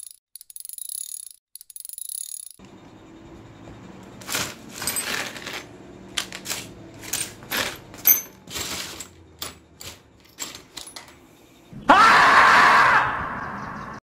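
Small metal motorcycle engine parts (cam chain, gears, pins) clinking against each other and a plastic tub as a hand rummages through them, searching for a missing crank pin. It is a run of irregular sharp clinks, followed near the end by a loud rushing noise of about a second that fades out.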